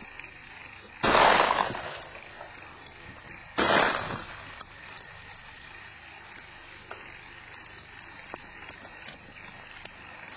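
Two shotgun shots about two and a half seconds apart, each a sharp bang fading quickly, fired at turtle doves flying overhead.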